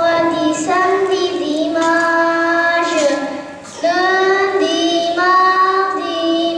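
A group of young children singing together in unison, holding each note for about a second, with a short breath break a little over three seconds in.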